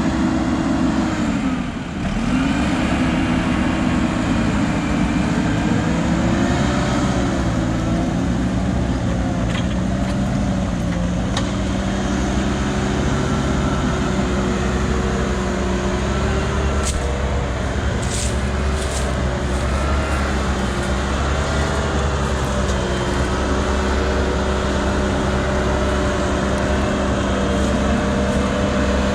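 Heavy diesel machinery engine running under load, its revs dropping sharply about two seconds in before settling into a steady run.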